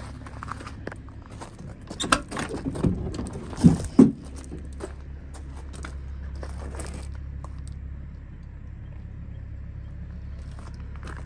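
Driver's door of a 1992 Ford F350 pickup being opened by hand: the outside handle and latch click and rattle, ending in two sharp metallic clunks about four seconds in, then a lighter rattle a few seconds later. A steady low rumble lies under it.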